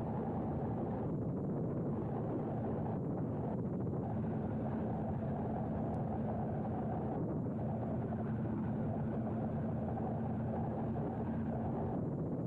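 Wind rushing over the microphone and road noise while riding the Tronic Roadrunner electric mini-bike, with a steady low hum.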